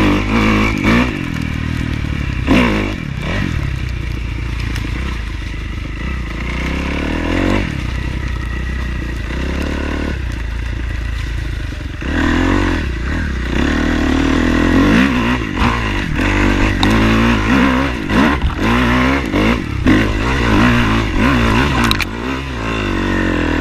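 Dirt bike engine running and revving, its pitch rising and falling with the throttle, with scattered clattering knocks.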